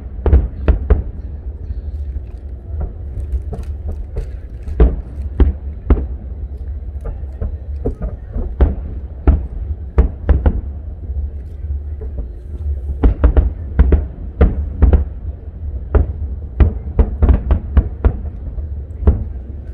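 Aerial firework shells bursting in a rapid, irregular run of sharp booms, some in quick clusters, over a constant deep rumble.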